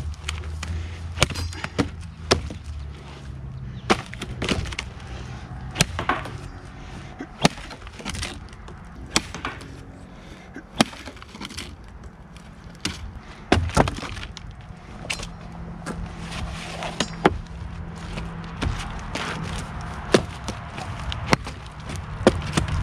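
24-inch Cold Steel Latin machete chopping into dry, weathered wood: a run of sharp, separate blows, about fifteen of them, roughly one every second or two.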